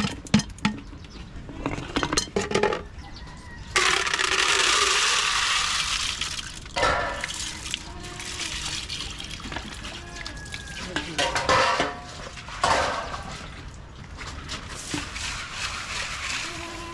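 Water poured out for about three seconds, among short clinks and knocks of pots and dishes.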